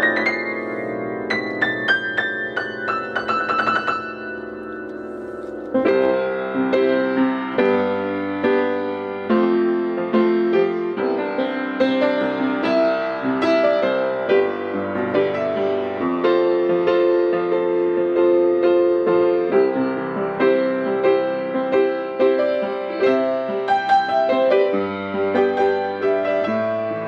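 Hellas upright acoustic piano, about forty years old, being played: a run of high notes stepping downward over the first few seconds, left to ring. Then, from about six seconds in, a steady flow of chords over a bass line.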